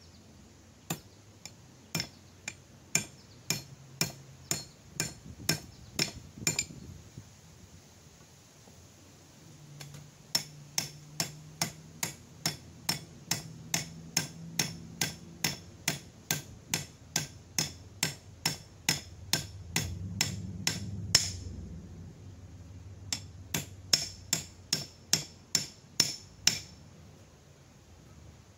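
Small hammer tapping an axe to drive the head down onto its hand-carved hickory handle: sharp metallic blows about two a second, in three runs with short pauses between.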